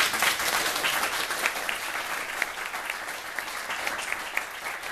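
Audience applauding at the end of a talk: many hands clapping together, loudest at first and easing off slightly.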